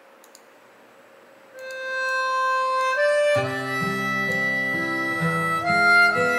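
Faint hiss, then a recorded Korean ballad's intro played back through a hi-fi amplifier and speakers: a sustained high melody line comes in about a second and a half in, joined by bass and chord accompaniment a couple of seconds later.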